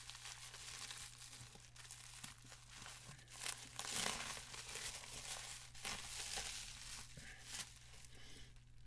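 Packaging being crinkled and torn open by hand in irregular bouts of rustling, loudest about four seconds in.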